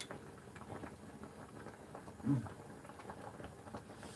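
Faint, soft clicks and ticks, with one brief low voice sound, like a hummed 'mm', about two seconds in.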